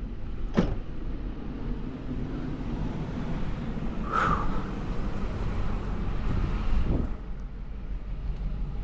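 Steady engine and road rumble of a vehicle being driven, heard from inside, with a couple of short knocks and a brief squeak partway through.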